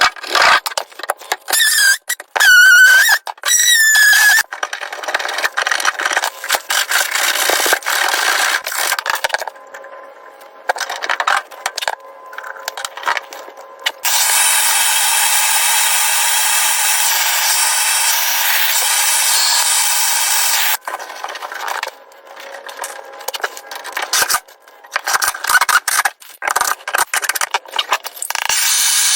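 Hand work on copper pipe during a solder repair: repeated scraping, rubbing and clicking, with a few short squeals near the start. About halfway through, a steady hiss runs for about seven seconds, then the scraping and clicking resume.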